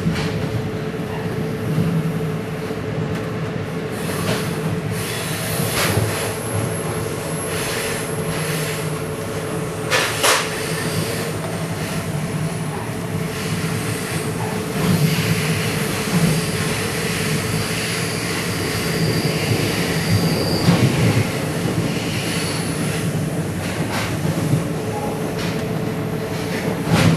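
NJ Transit commuter train running on the rails: a steady hum with metallic wheel squeal and a few sharp clicks from the track.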